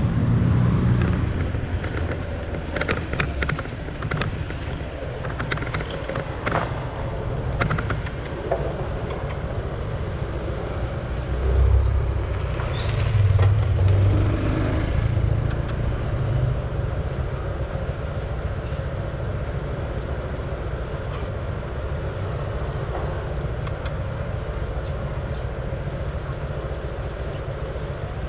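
Urban street background noise: a steady low rumble of traffic that swells once about twelve seconds in, with a few sharp clicks in the first several seconds.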